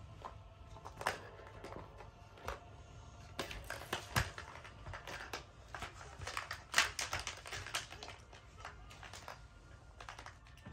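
Hard plastic cat track toy clicking and knocking as a cat bats, noses and paws at it: irregular taps and rattles, with a couple of louder knocks in the middle.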